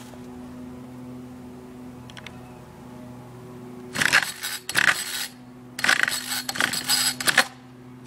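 Homelite string trimmer's small two-stroke engine being pull-started twice, about four seconds in and again near six seconds. Each pull is a short rattling whirr of the recoil starter turning the engine over, and it does not start.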